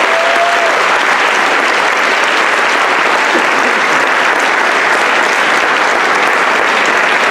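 Large audience applauding, a steady, loud clapping.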